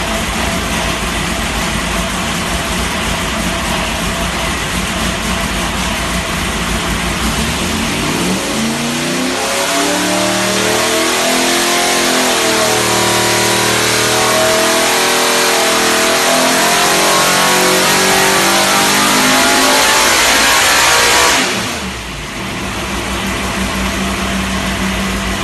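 Ford 289 small-block V8 racing engine run on an engine dyno: it runs steadily, then about eight seconds in its pitch climbs through the revs as it comes up on the cam, sounding really strong. It holds high for several seconds, then drops back suddenly to a lower steady note when the pull ends, shortly before the sound cuts off.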